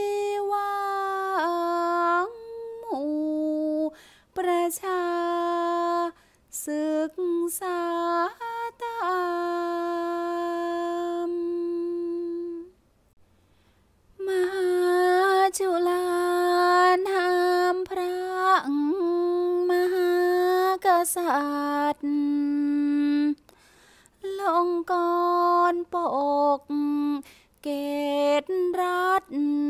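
A single voice chanting Thai sepha verse unaccompanied, holding long notes that slide between pitches. It breaks off for about a second and a half about halfway through.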